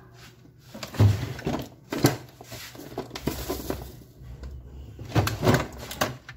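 Knocks and clatter of things being handled on a workbench: two sharp knocks about one and two seconds in, a softer rattle after them, and another cluster of knocks near the end.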